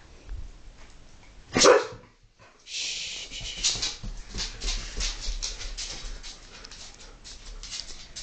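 A poodle barks once, sharply, about one and a half seconds in. Then a long run of scrabbling and rapid clicking, dog claws on a tile floor as the dogs play, fading towards the end.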